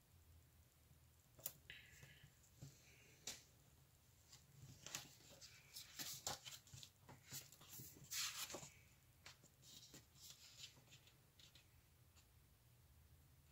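Faint rustling and small clicks of paper being handled as a sticker is placed onto a planner page, busiest in the middle, over a quiet room.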